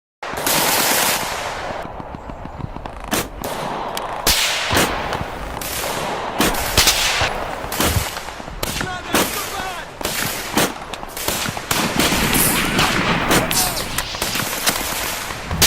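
Mixed WW2 battle sound effect: dense, irregular machine-gun bursts and single gunshots crack over a constant din of battle noise, starting abruptly just after the beginning.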